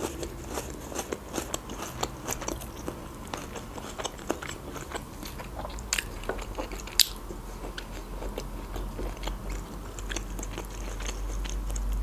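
Close-miked chewing and biting of food, with wet mouth smacks and crunches, and a few sharp clicks of a metal fork on a plate about six and seven seconds in.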